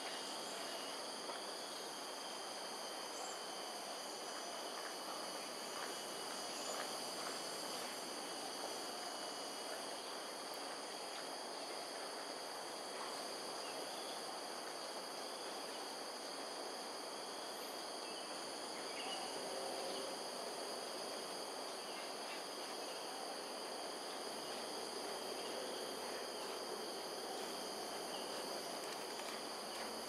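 Steady insect chorus, several high continuous trilling tones held without a break, over an even background hiss.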